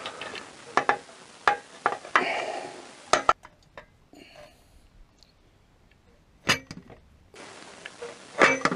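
Stainless steel 4-into-1 exhaust down pipes being handled into place against the engine's exhaust ports and studs, clinking and knocking metal on metal. There are a scatter of sharp clinks early on, a quieter stretch with one louder knock, and a few more clinks near the end.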